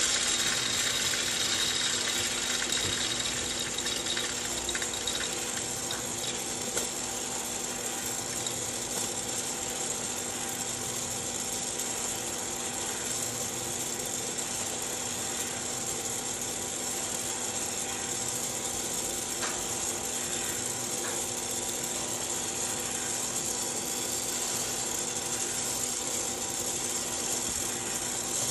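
Hottop home coffee roaster in its cooling cycle: the fan hisses steadily over a motor hum while the stirring arm sweeps freshly roasted beans around the perforated cooling tray, with a few light clicks of beans.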